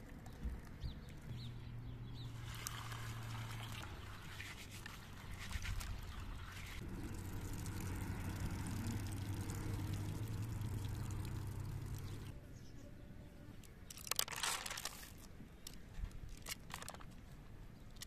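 Water poured out and splashing, first hot water from a kettle onto bulgur and then from a plastic basin, over a steady low hum. A short burst of crackling comes near the end.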